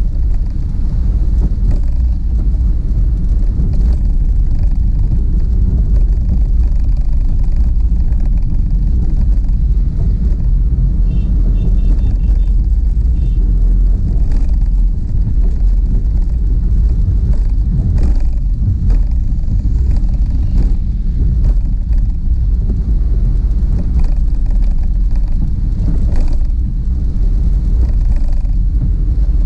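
Steady low rumble of a car driving on a wet road, heard from inside the cabin, with tyre and road noise and occasional faint knocks.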